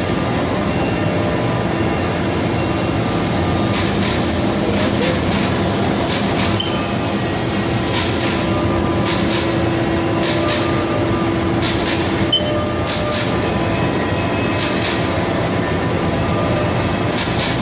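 Haas SL-10T CNC turning center running: a steady mechanical drone with a few held tones and occasional sharp clicks.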